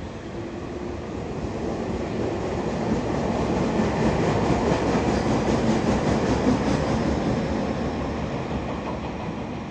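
Electric train passing by: its rumble builds up, is loudest about midway, then fades away.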